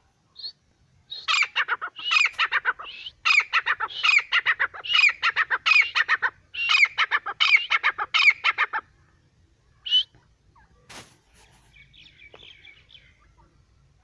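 Grey francolin calling: a loud, rapid series of repeated high call notes in phrases for about eight seconds, then one lone note. Near the end there is a sharp knock, then faint soft chattering.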